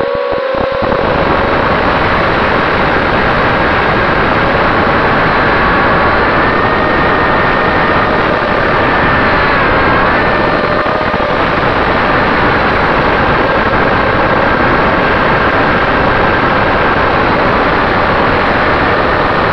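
ImmersionRC Vortex 285 FPV racing quadcopter in flight on a 4S battery, heard on board: a loud, steady rush of propeller wash and wind with a thin motor whine that rises in pitch about six seconds in and drops back near ten seconds as the throttle changes.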